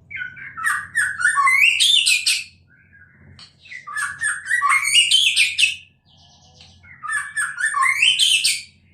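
A songbird sings three similar phrases, each about two and a half seconds long, with a short pause between them; each phrase starts low and climbs to a high whistle. A faint, steady low hum runs underneath.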